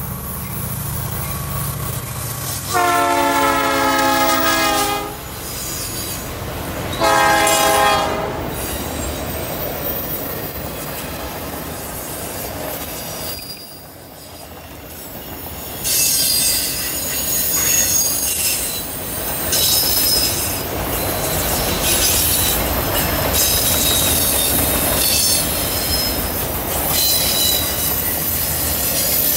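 Freight train passing: the diesel locomotive's air horn sounds its chord in two blasts, a long one about 3 seconds in and a shorter one about 7 seconds in, over the rumble of the train. Then the autorack cars roll by, and their wheels squeal in high, wavering tones on the curve through the second half.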